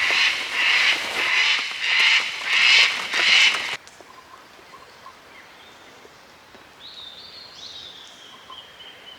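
Birds calling harshly over and over, about two loud calls a second, cutting off suddenly almost four seconds in. Then a quiet outdoor background with a faint, high, whistled bird call near the end.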